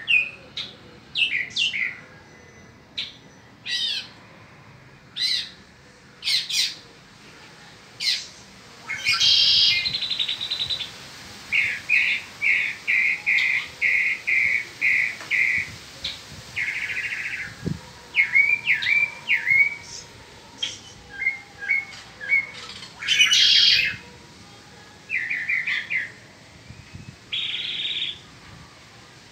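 Mockingbird singing a varied string of short phrases: sharp chirps and slurred whistles, harsh buzzy notes, and near the middle a run of about ten quick repeated notes.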